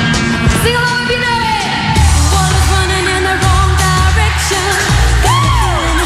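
Pop song performed live: several women singing into microphones over a loud pop backing track. A deep bass line and beat come in about two seconds in.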